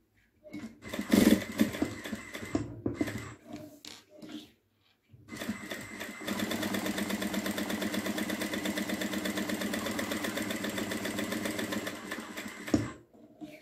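Table-mounted industrial sewing machine stitching a seam along the edge of a fabric strip: a few seconds of fabric handling and short knocks, then the machine runs at a steady, fast stitching rhythm for about seven seconds and stops abruptly near the end.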